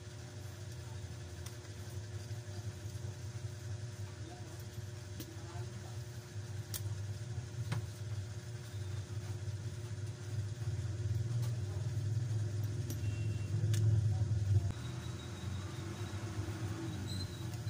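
A steady low engine-like rumble that grows louder and then drops off suddenly about fifteen seconds in, with a few small sharp clicks over it.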